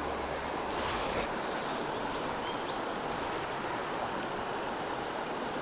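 A swollen trout stream running in high flow, its water rushing in a steady, even wash.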